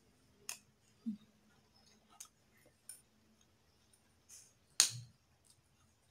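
Metal spoon clinking and scraping against a ceramic plate of rice: several separate sharp clinks, the loudest about five seconds in.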